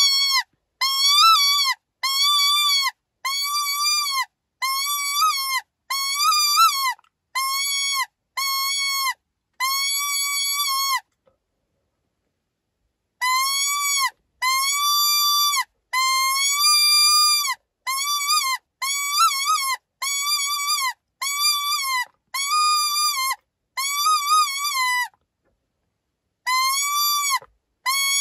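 Coyote-hunting predator call playing an animal-in-distress sound: a long string of high-pitched cries, about one a second, each holding a steady pitch, some with a quaver, and dropping off at its end. The string breaks off twice for a second or two.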